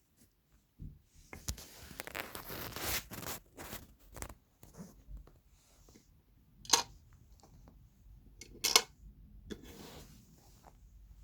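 Handling noises: rustling and scraping of parts being moved about, with two sharp clicks a couple of seconds apart in the second half.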